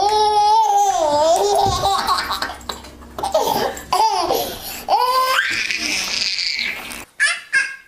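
Baby belly-laughing in long bouts, rising into a high squealing laugh about five seconds in.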